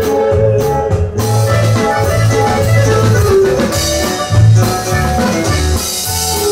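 Live dance band playing an instrumental passage: a deep bass line pulsing under a keyboard melody, with drums and cymbals coming in about a second in and growing busier after about four seconds.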